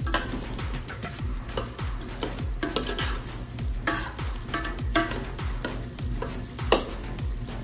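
A ladle stirring chicken curry in a metal pot, scraping and knocking against the pot's side several times over the hiss of the simmering sauce. Background music with a steady beat plays underneath.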